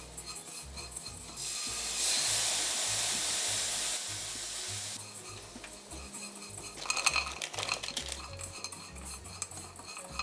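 Small dried anchovies being stir-fried in a nonstick wok, a silicone spatula scraping and tossing them. A loud hissing sizzle lasts about three seconds, and later a brief rattling clatter comes as mixed nuts are tipped into the pan.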